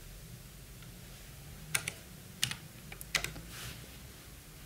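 Typing on a computer keyboard: about six keystrokes in three quick pairs, starting a little under two seconds in.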